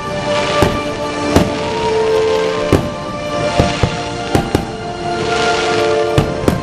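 Aerial fireworks bursting: about eight sharp bangs at uneven intervals, with swells of crackling hiss between them. Music plays underneath throughout.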